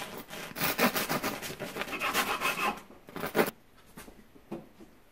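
Serrated bread knife sawing back and forth through a crusty loaf on a wooden cutting board: a run of rasping strokes that stops about three and a half seconds in.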